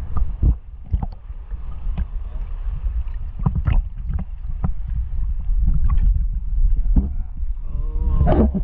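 Sea water sloshing and lapping against a camera held at the waterline: a deep, continuous rumble with scattered short splashes. Near the end there is a brief wavering tone.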